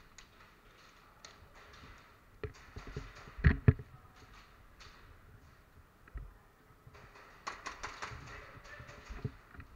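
Scattered sharp clicks and knocks with light rustling; the loudest is a pair of knocks about three and a half seconds in, and a quick run of clicks follows near the end.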